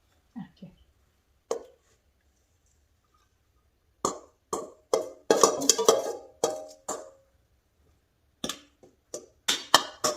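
Utensils clinking and knocking against dishes: a run of sharp clinks, some ringing briefly, starting about four seconds in, then a pause and a second run near the end.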